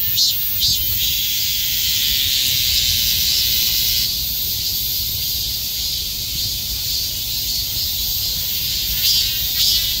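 Chorus of cicadas calling in a steady, shrill buzz. A rhythmically pulsing call fades out about a second in and starts again near the end.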